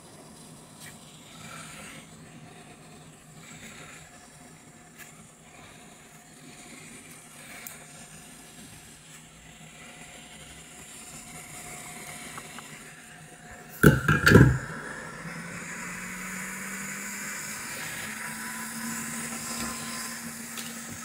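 Faint handling of small tools for most of the stretch. About two-thirds of the way through there is a short loud clatter. A steady blowing hiss with a low hum that rises slightly in pitch follows, as a hot-air rework station's fan runs up.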